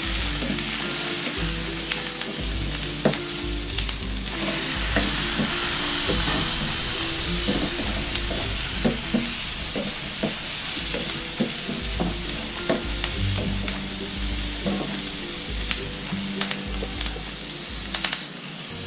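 Chopped onions, ginger and green chilies sizzling steadily in a nonstick frying pan while a wooden spatula stirs them, with scattered clicks and scrapes of the spatula against the pan.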